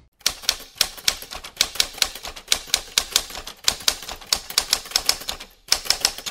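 Typewriter keys striking in a quick, uneven run of about five clacks a second, with a brief pause near the end before the typing starts again.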